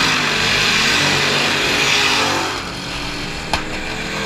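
A pack of dirt-track stock cars racing past at full throttle, their engines loud and overlapping, easing off a little after about two and a half seconds as the pack moves away. A single sharp click about three and a half seconds in.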